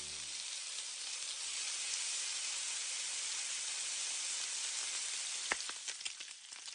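Steady sizzling hiss of a freshly roasted Peking duck just lifted out of the oven, its fat still hot on the skin. Sharp crackles break in near the end.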